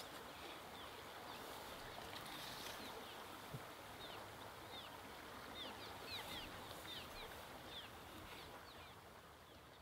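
Small birds chirping, many short high falling calls scattered throughout, over a faint steady outdoor hiss; it all fades out near the end.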